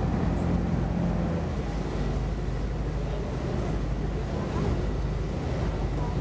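Tour boat's engine running steadily under way, a low even hum, with water rushing past and wind on the microphone.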